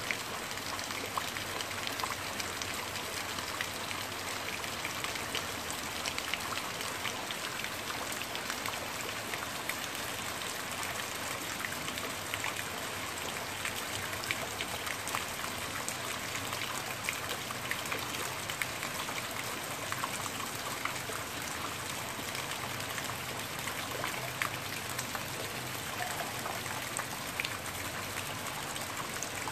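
Steady rain falling on garden plants and ground, with many individual drops heard as fine ticks close by.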